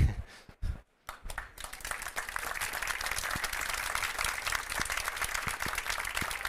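Audience applauding: many hands clapping, starting about a second in, building quickly and then holding steady.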